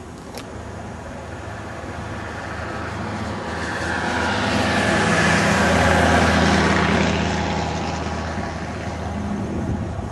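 A passing vehicle's engine, swelling steadily to a peak about six seconds in and then fading away.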